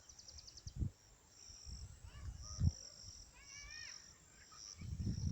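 Outdoor birdsong: a bird gives repeated arching whistled calls against a high, on-off insect chirring, with a quick trill at the start. A few dull low thumps come through, and a low rumbling noise builds near the end.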